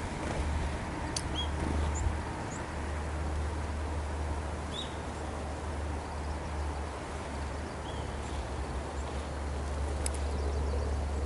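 A steady low rumble throughout, with a few short, faint high bird chirps scattered through it and a couple of light clicks.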